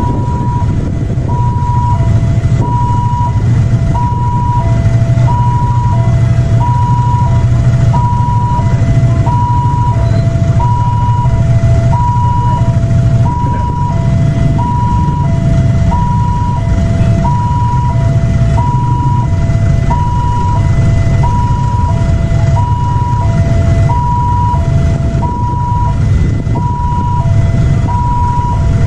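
Railway level-crossing warning alarm sounding its two-tone signal, a higher and a lower tone alternating steadily about every half second, the warning that a train is approaching and the barrier is closed. Underneath runs a steady low rumble of idling engines.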